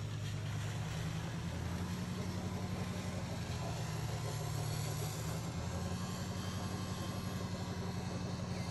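A motor running at a steady speed: a low, even drone that holds the same pitch and level throughout.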